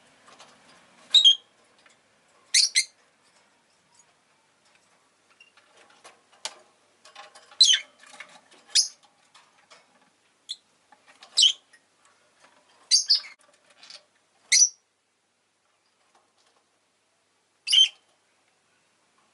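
Rosy-faced lovebirds giving short, shrill chirps, one at a time at irregular gaps of a second or more, with fainter soft calls in between.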